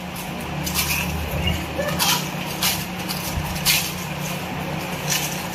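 Puchka (pani puri) crisp hollow shells crunching as contestants bite into them, several short crunches a second or so apart, over a steady low hum.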